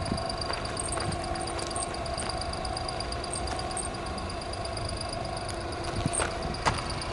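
Honda Acty kei truck's small three-cylinder engine idling steadily, with a few light clicks of footsteps on gravel.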